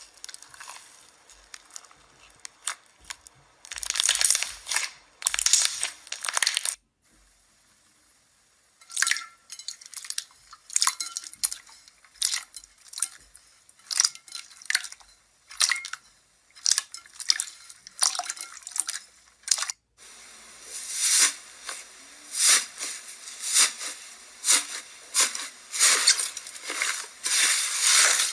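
Hands squeezing and pressing slime, making a run of sharp clicks, crackles and wet pops: first a crunchy slime packed with foam cubes, then smoother slimes pressed in a bowl and on a plate. The sounds break off for about two seconds around seven seconds in, and again briefly near twenty seconds, where a denser stretch of crackling begins.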